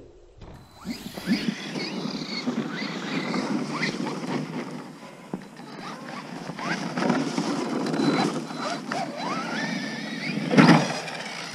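Electric RC monster truck running on snow: its motor whine rises and falls as the throttle is worked, over drivetrain and tyre noise, with a louder burst about ten and a half seconds in.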